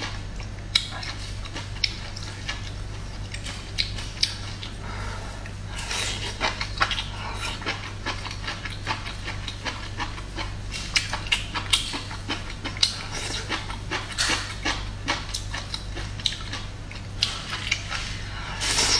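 Chewing of stir-fried bamboo shoot slices: many irregular crisp crunches and wet mouth sounds, with the odd tap of chopsticks on the bowl, over a steady low hum.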